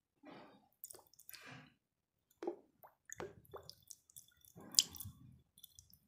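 Wet, dye-soaked block of homemade gym chalk being handled over a glass bowl: a series of short squishes and drips, with one sharper click a little before the end.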